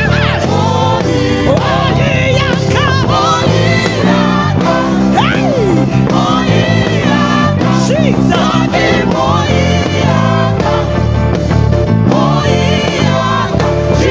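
Live gospel worship music: a band with a prominent electric bass playing stepping low notes under singing voices with gliding vocal runs.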